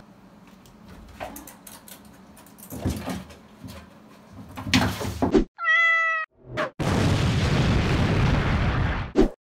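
A few soft knocks and scuffs, then a single short meow held at one pitch, followed by a loud whooshing sound effect lasting about two and a half seconds that ends in a sharp hit.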